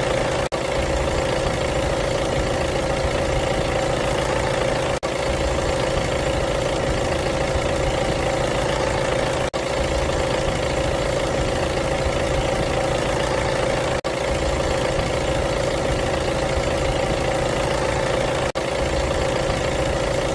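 Diesel car engine idling steadily, with a brief dropout in the sound about every four and a half seconds.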